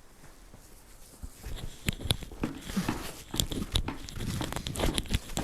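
A Shetland ewe nosing and mouthing the microphone's foam windscreen: close crackling, rubbing and clicking handling noise that starts about a second and a half in.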